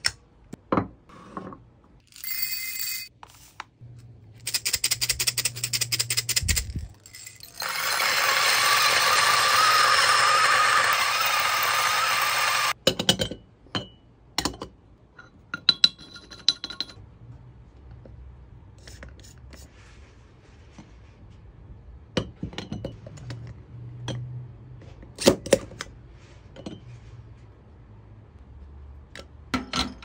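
DF64V single-dose flat-burr coffee grinder running and grinding beans for about five seconds. Around it are many short metal clicks, clinks and taps from the dosing cup and tools being handled.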